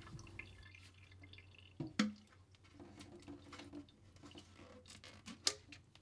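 Water dripping into a stainless steel sink from a boiler's condensate trap as it is taken apart, with a few short sharp clicks, the clearest about two seconds and five and a half seconds in.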